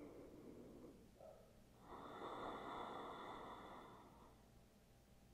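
Quiet, slow breaths through the nose, close to the microphone: one fades out about a second in, and a longer, fuller breath follows from about two to four seconds in.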